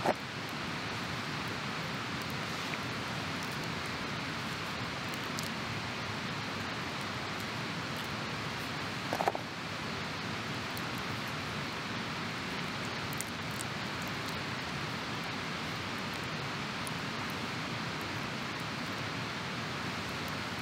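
A steady, even rushing noise with no rhythm. A brief, slightly higher-pitched sound stands out about nine seconds in.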